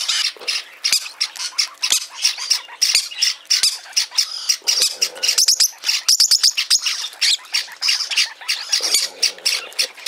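Peach-faced lovebird chicks giving rapid, repeated rasping begging calls, several a second without a break, while being hand-fed.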